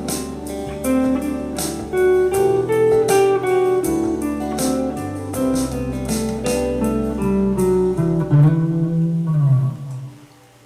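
Electric guitar played through an amp over a drum backing track, with a quick run of notes before a final held low note rings and dies away about two seconds before the end.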